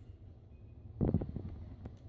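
Brief handling noise about a second in: a short low rustling thump that fades within half a second, then a faint click near the end.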